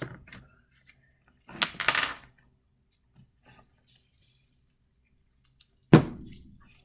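Small handling sounds: light clicks, a brief clinking rustle about a second and a half in, and a sharp knock near the end, like a small object set down on a table.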